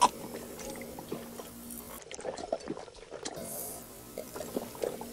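A man gulping a drink from a wine glass, with wet swallowing and slurping sounds and small clicks. A sharp click comes right at the start.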